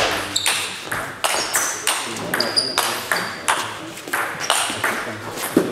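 Table tennis rally: the ball clicking sharply off the bats and the table, about two to three hits a second.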